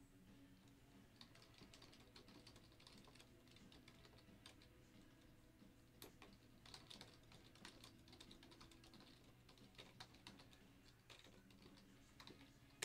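Faint typing on a computer keyboard: irregular keystrokes in short runs, over a low steady hum.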